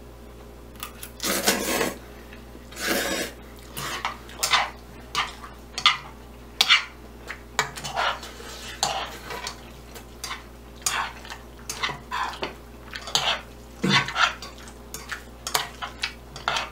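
Metal spoon and chopsticks scraping and knocking against a nonstick frying pan while stirring noodles and rice cakes in a thick sauce. Two longer scrapes in the first few seconds, then irregular shorter clinks and scrapes about once or twice a second.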